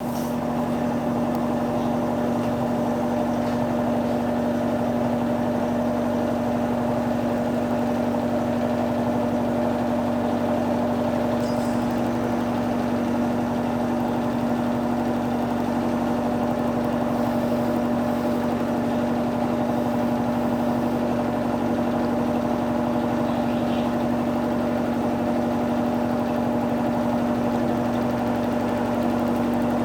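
Electrolux Turbo Economia 12 kg top-loading washing machine running with a steady mechanical hum at one unchanging pitch.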